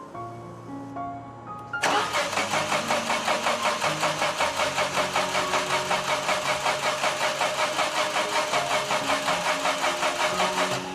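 Fiat 500 0.9 TwinAir two-cylinder engine cranking on the starter without catching: an even, rhythmic chug about five times a second that starts about two seconds in and goes on for about nine seconds.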